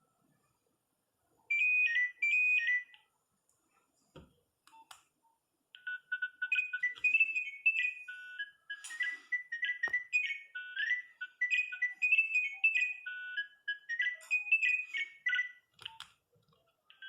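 Nokia 3510 mobile phone playing a ringtone through its small speaker: a fast melody of short beeping notes that starts about six seconds in and stops shortly before the end. Before it, two brief double beeps, and a few faint clicks.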